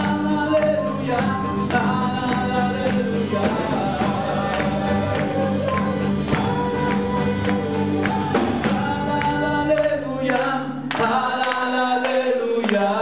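Live worship band music: a man singing over a strummed twelve-string acoustic guitar and a drum kit keeping a steady beat. About ten seconds in, the low end falls away briefly before the full band comes back in.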